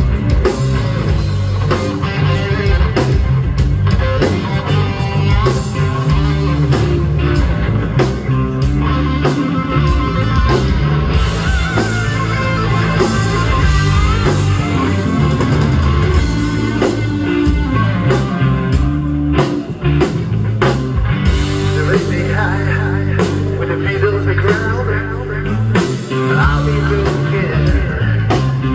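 Live rock band playing loud through a PA: electric guitars over bass and a drum kit, with a wavering lead line above the beat.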